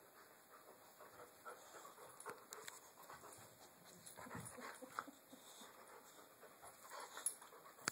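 Faint sounds of a boxer and another dog play-fighting at close range: breathing and scuffling, with a few short sharp clicks.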